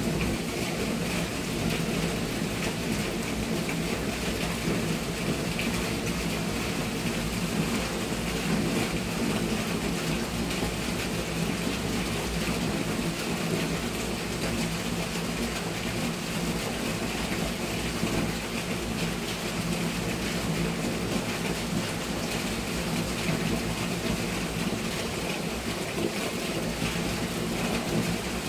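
Steady thunderstorm rain: an even hiss of rainfall with a low, continuous rumble underneath.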